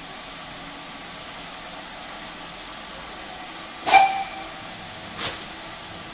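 Steam locomotive pulling away: a steady hiss of steam, then two sharp exhaust beats about a second and a half apart. The first is the louder, with a brief metallic ring.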